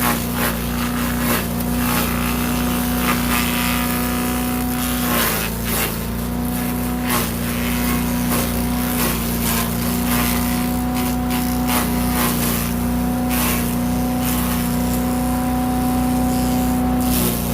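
Gas-engine Predator wood chipper running steadily while chipping brush, with repeated sharp cracks of branches going through it. The engine pitch sags briefly about five seconds in and again near the end as it takes a load.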